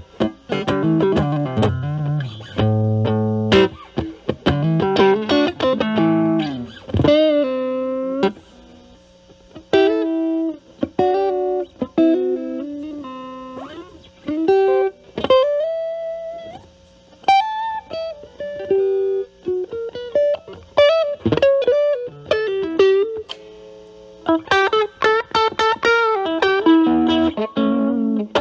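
Electric guitar with single-coil pickups played through an Ibanez Super Metal mini distortion pedal at high gain (drive about 10–11) into a Marshall Valvestate amp's clean channel. It opens with distorted chords, moves to single-note lead lines with bends, vibrato and sustained notes, and returns to chords near the end.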